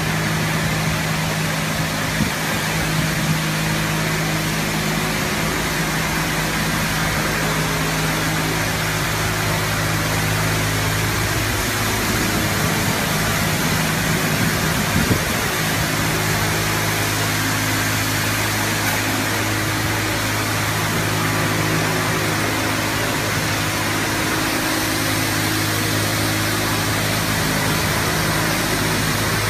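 Leisuwash 360 touchless car wash spraying a car with high-pressure water: a steady hiss of spray over the hum of the pump motor. About halfway through, the hum wavers for a few seconds, then steadies again.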